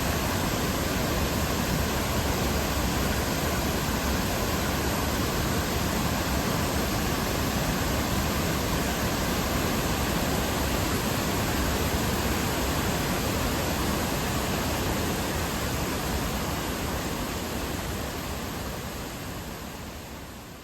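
Steady rush of water from Fukiware Falls on the Katashina River, fading out over the last few seconds.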